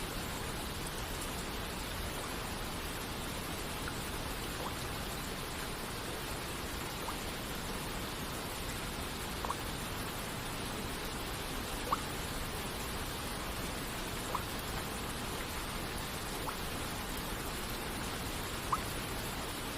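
Steady hiss of rain and falling water, with single water droplets plinking clearly over it about every two seconds.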